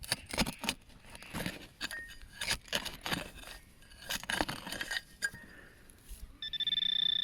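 A digging tool scraping and clinking against rocks in stony ground, a run of sharp knocks and scrapes. Near the end a Minelab Manticore metal detector gives a steady high beep for about a second and a half, its response to the buried target.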